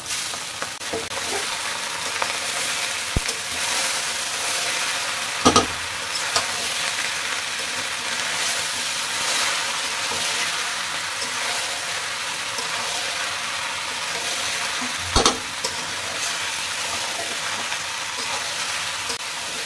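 Stir-fried noodles and vegetables sizzling in a metal wok over high heat while a metal spatula turns and scrapes them. Two sharp clacks of the spatula on the pan, about five seconds in and again about fifteen seconds in.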